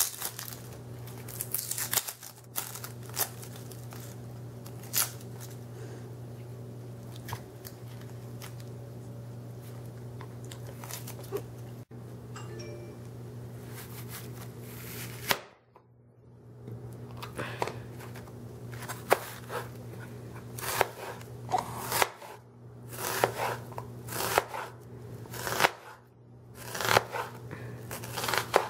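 Papery onion skin being peeled off by hand, crackling and tearing. From about halfway, a chef's knife slices the onion into thin strips, its blade tapping again and again on a plastic cutting board, over a steady low hum.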